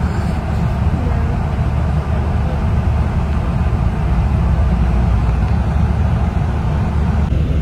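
Steady low rumble of road and engine noise inside a moving tour bus at highway speed.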